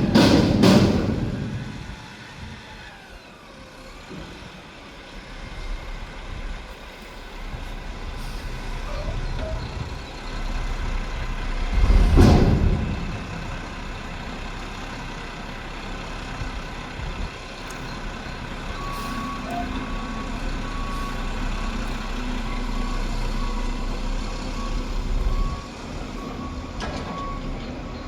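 Mack garbage truck with a McNeilus front-loader body running, with loud bursts of noise near the start and again about twelve seconds in. From about two-thirds of the way through, its reversing alarm beeps at an even pace over the engine.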